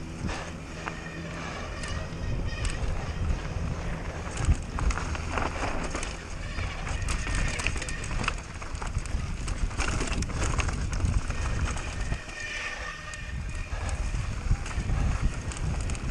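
Mountain bike descending a rough trail at race speed: a deep continuous rumble with constant small knocks and rattles from the tyres, frame and chain over the rough ground.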